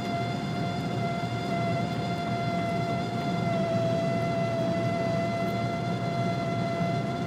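Steady whistling squeal from the dashboard of a BMW 330 E91 at over 140 km/h: one held tone with overtones, a little louder in the middle, over a low rumble of road and wind noise inside the cabin.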